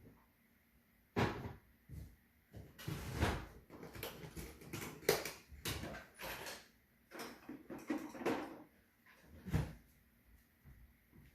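Irregular knocks, clatter and rustling of someone rummaging for a screwdriver, with sounds like doors or drawers being opened and shut.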